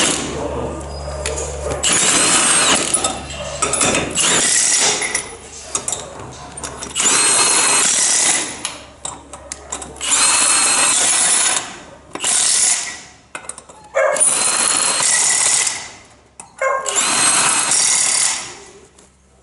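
Milwaukee cordless impact wrench running on the lug nuts of a race car wheel, in about six short bursts of one to two seconds each with pauses between.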